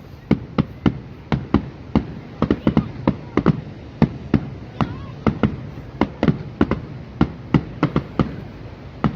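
Fireworks going off in a rapid, irregular string of sharp bangs, about three a second, kind of loud.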